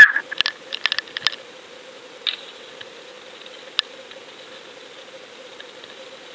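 Underwater audio from a camera housing on a fishing line: a steady hiss with a faint hum. A quick string of sharp clicks and taps sounds in the first second and a half, the loudest right at the start, followed by two lone clicks.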